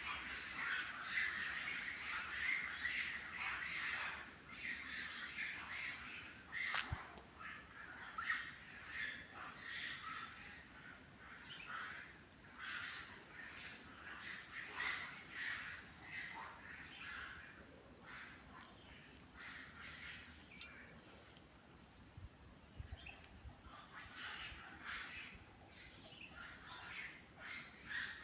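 Steady high-pitched chorus of insects, with an irregular burbling of fast-flowing river water beneath it and a single sharp click about seven seconds in.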